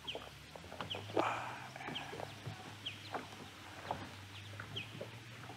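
A bird calling in the background: short, high, down-slurred chirps repeated every half second or so. Faint clicks and rustles of a hook being worked out of a fish in a landing net.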